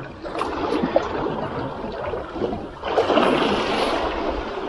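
Small sea waves washing and splashing against shoreline rocks, swelling louder for about a second near the end.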